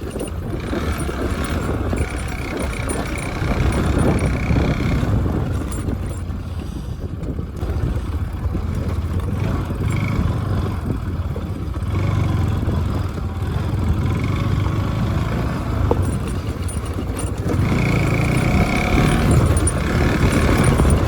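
Motorcycle running along the road, heard through a phone mounted on the rider's helmet, with a steady rumble of wind on the microphone.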